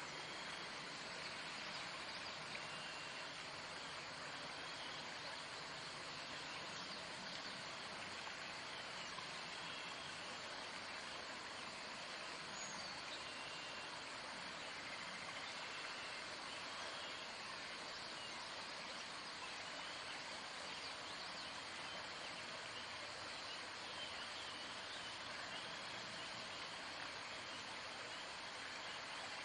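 Steady outdoor ambient hiss, with faint short high chirps every few seconds.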